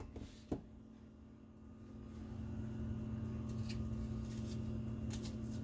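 Faint scraping strokes as seeds are scraped out of quartered cucumbers, a few short strokes toward the end, over a steady low hum. A light click comes about half a second in.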